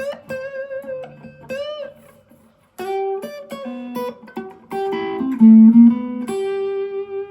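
Gear4Music LA Select Strat-style electric guitar playing a bluesy single-note lead phrase through an overdrive patch on a Zoom G1Four, a FoxGear Tweed 55 amp and a Vox BC108 cab. It has a string bend early on and ends on a long held note.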